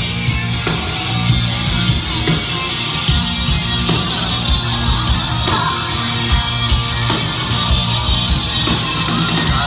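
Live rock band playing with no singing: electric guitar over a steady drum beat, loud and heard from within the crowd.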